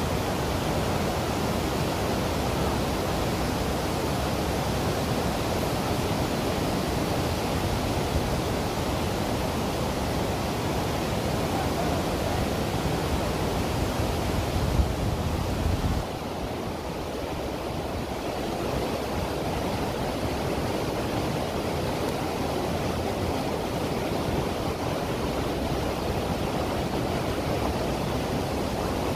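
Steady rush of falling water from a waterfall. About halfway through, the deep rumble drops away and the sound becomes slightly quieter.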